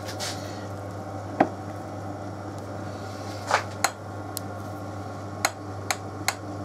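Sharp metallic clicks and knocks, about six spread over several seconds, as a boring bar is fitted between the centres of a Myford lathe and the tailstock handwheel and clamp are worked. A steady low hum runs underneath.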